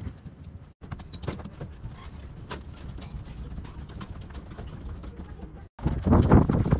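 Children's footsteps as a group walks out, a scatter of irregular light taps broken by two brief drop-outs. Near the end come louder, heavier footfalls on metal grate stairs.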